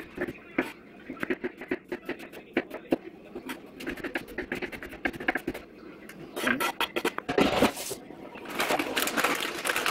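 Knife chopping an onion on a cutting board, a run of irregular sharp knocks. In the second half comes a louder scraping and rustling as the chopped onion is moved into the bowl.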